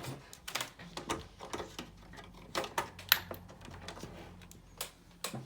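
Scattered clicks and knocks of a power cable being plugged into a desktop computer and the cable being handled, the sharpest about three seconds in, with a faint steady low hum underneath from about a second in.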